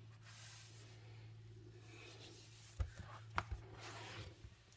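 A paperback coloring book being handled and slid across a wooden desk: soft paper rustling, with a few light knocks about three seconds in.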